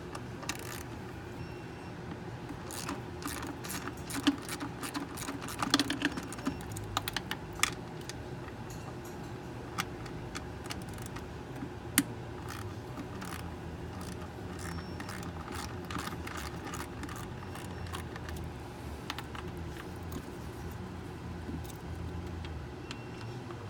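Metal hand tools and bolts clinking and clicking irregularly as the intake manifold bolts are taken out of an engine, busiest in the first third, over a steady low hum.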